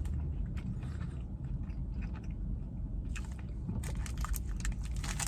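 Someone chewing a mouthful of Payday candy bar (salted peanuts over caramel nougat), with small crunches and mouth clicks that come thicker in the second half. A low steady rumble runs underneath.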